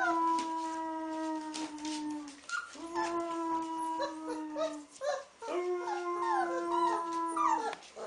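A man and a wolf pup howling together: three long, steady howls from the man, each about two seconds, with the pup's higher, wavering howls and yips over and between them.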